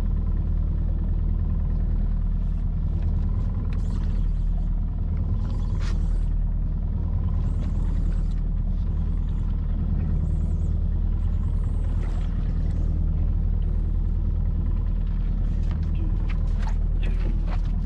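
Evinrude 115 outboard motor running steadily at low speed: an even, low rumble with no change in pitch.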